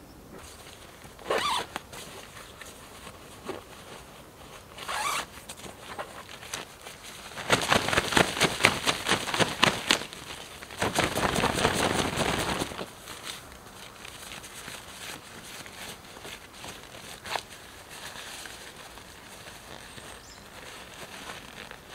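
A zipper being pulled, in two longer runs of rapid fine clicks about 8 and 11 seconds in, after two short scratchy pulls earlier.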